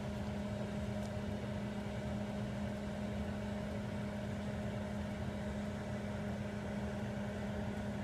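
Old microwave oven running with a steady electrical hum.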